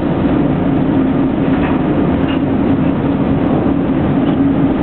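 Steady drone of a Boeing Jetfoil 929-115 under way, its gas turbines and waterjet propulsion heard inside the passenger cabin, with a steady low hum running through the noise.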